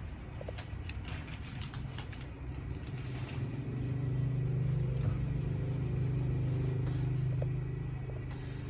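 A motor vehicle engine running. It is a low steady hum that grows louder about three and a half seconds in, holds, and eases off near the end.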